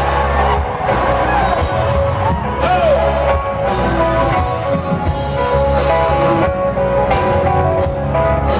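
Live rock band playing at full volume: electric guitars holding long notes over drums and bass, with a few bent notes in the first few seconds.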